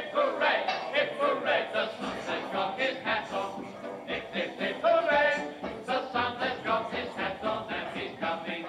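Recorded song playing, with singing voices.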